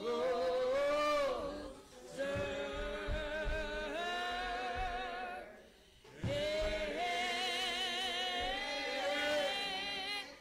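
Slow hymn singing with long, drawn-out wavering notes. It breaks off briefly about two and six seconds in.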